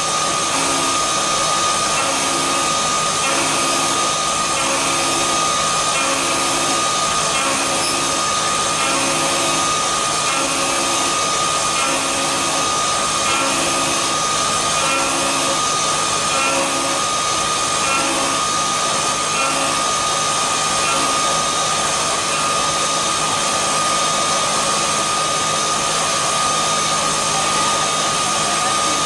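Swiss-type CNC lathe running steadily while turning a brass fitting: a constant whir with a fixed high tone over it. A low two-note pulse repeats about once a second and stops about two-thirds of the way through.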